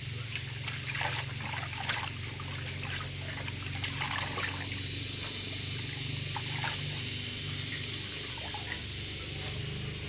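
Water trickling and dribbling, with scattered small splashes and clicks, over a steady low hum.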